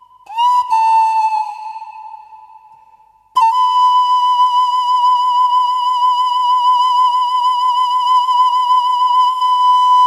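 Background music: a solo flute-like melody line. One note sounds and fades over about three seconds, then a second note is held with vibrato for about six seconds.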